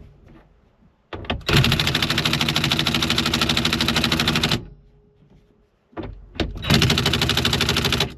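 Impact wrench on its low power setting hammering the steering wheel nut tight: a long run of rapid, even impacts about a second and a half in, then a shorter second run near the end.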